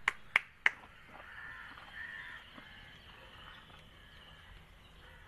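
Three sharp hand claps in quick succession, followed by faint outdoor background sound.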